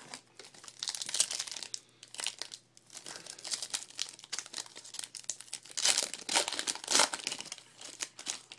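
Foil wrapper of a 2012 Panini Prestige trading-card pack crinkling and tearing as hands rip it open, in irregular bursts of crackling with brief pauses, loudest near the end.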